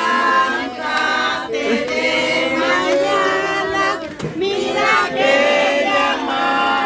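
A group of people singing together, many voices overlapping and loud, with a brief dip about four seconds in.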